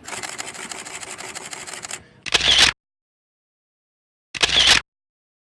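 Camera shutter firing in a rapid continuous burst for about two seconds, then two louder single shutter releases a couple of seconds apart, each cutting off into silence.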